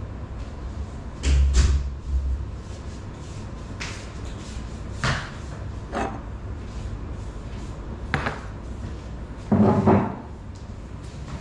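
Scattered knocks and thumps of someone moving about, with a loud thump about a second in, over a steady low hum. Near the end a drinking glass is set down on the table.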